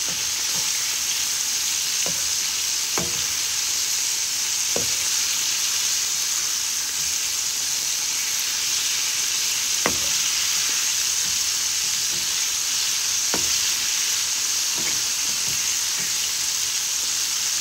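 Flour-coated chicken strips deep-frying in hot oil: a steady sizzle and bubbling, with a few light clicks now and then.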